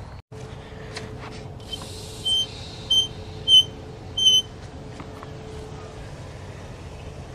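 Outdoor hose faucet's valve handle squeaking four times in quick succession as it is turned, over a faint steady hum that stops about six seconds in.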